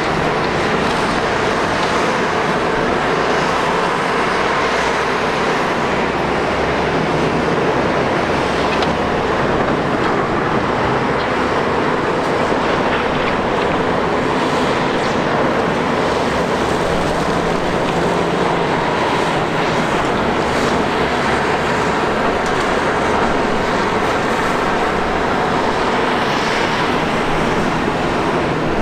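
Liebherr R 960 high-reach demolition excavator's diesel engine running steadily under load, with faint clatter from the demolition work.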